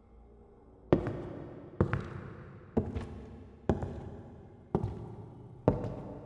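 Slow, heavy footsteps, a sound effect: six evenly spaced steps about a second apart, each a sharp thud with an echoing tail, the first about a second in.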